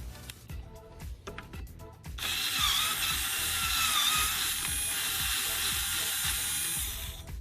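A few ratchet clicks, then about two seconds in a handheld power driver runs steadily for some five seconds, its whine wavering slightly in pitch as it backs out the bracket bolts. Background music plays throughout.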